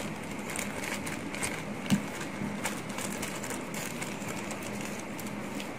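Soft crinkling of a clear plastic bag being pulled off a small model airplane part, a few faint rustles and a light knock about two seconds in, over a steady room hum.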